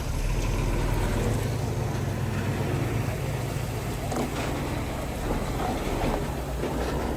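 Diesel engine of a piece of earthmoving machinery running steadily, with a few faint knocks.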